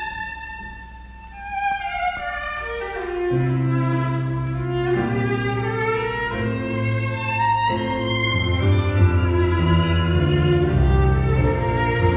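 Tango music led by violin: after a soft opening a violin line steps downward in pitch, and about three seconds in low bowed-string and bass notes come in under it as the ensemble plays on.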